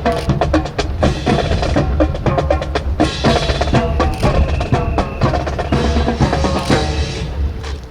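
Drum-led marching band music: snare and bass drums playing a busy rhythm of sharp strokes over held tones. It fades away near the end.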